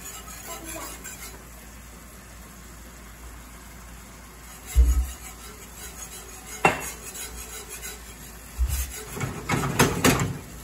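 Metal wire whisk stirring gravy in a cast iron skillet, scraping and clinking against the pan. There is a sharp tap about two-thirds of the way through, a couple of dull low thumps, and a burst of metal clatter near the end as the skillet is shifted on the gas range's grate.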